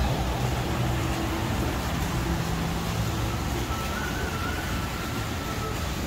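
Street ambience with a steady low traffic rumble. A faint, wavering, high siren drifts in from a distance about halfway through.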